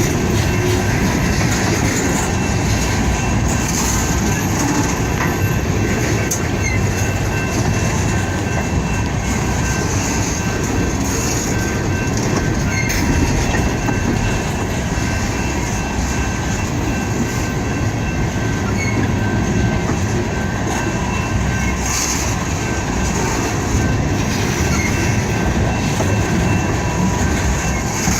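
Freight train cars rolling past: a steady rumble of wheels on rail with a faint, thin, steady wheel squeal.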